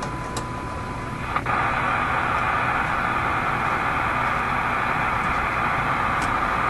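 RCA A25 tube radio's speaker: a steady 1 kHz test tone from the signal generator for about the first second, cut off by a click, then a loud, even hiss of shortwave static as the set comes off the generator's signal on the newly selected band.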